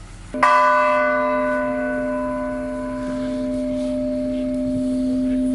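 A church bell hanging free from a crane hook, struck once about half a second in and left ringing: a long, sustained hum of several pitches at once that barely fades, swelling and easing slightly as it rings.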